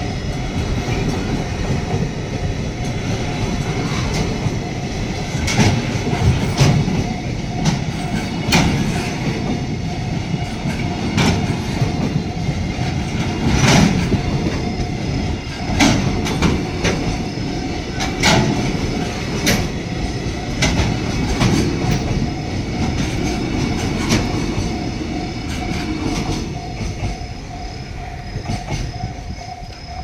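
Container flat wagons of a freight train rolling through a level crossing: a steady rumble of wheels on rail with sharp clacks as wheels strike the rail joints and crossing. A level-crossing warning bell rings throughout. The rumble eases near the end as the last wagons pass.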